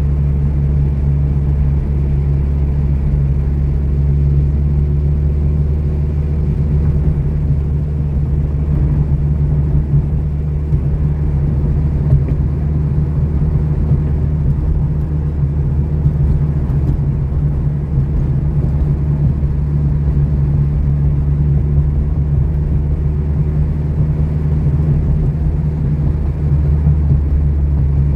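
Mitsubishi Lancer Evolution's turbocharged four-cylinder engine droning steadily with tyre and road noise as the car drives along at an even pace.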